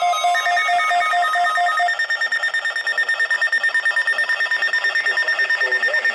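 Electronic emergency alert tone: rapid pulsing beeps. A lower pulsed beep stops about two seconds in, and a faster-pulsing high tone carries on.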